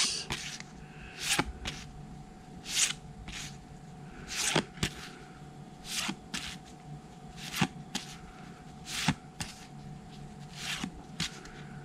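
Game cards flipped through one at a time in the hands, each card sliding off the deck with a short snap, about one a second at an uneven pace.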